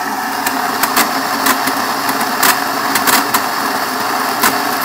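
Baratza Vario coffee grinder grinding beans through its ceramic burrs: a steady motor whir with irregular sharp cracks and clicks through it. This is the odd grinding noise its owners are trying to understand.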